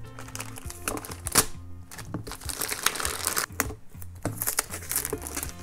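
Plastic mailer bag rustling and crinkling as a parcel is cut open with scissors and the box inside pulled out, with a few sharp clicks, over quiet background music.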